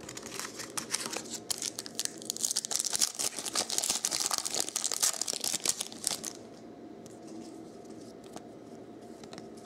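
Shiny foil trading-card pack wrapper being torn open and crinkled in the hands: a dense crackling for about six seconds. After that, a few light clicks as the cards inside are handled.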